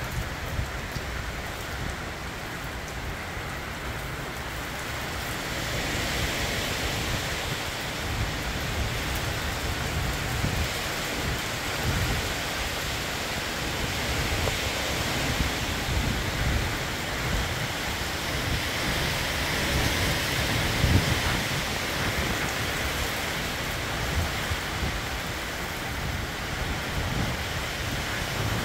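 Heavy summer rain falling steadily during a thunderstorm, growing heavier about five seconds in, with low rumbling beneath.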